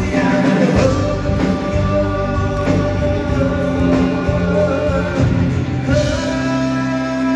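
Live rock band playing: electric guitars and drums with a singing voice, heard from the back of a large banquet hall.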